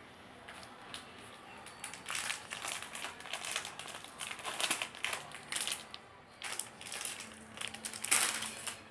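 Plastic bag of Fini gummy candies crinkling in irregular bursts as it is handled and rummaged through, starting about two seconds in and loudest near the end.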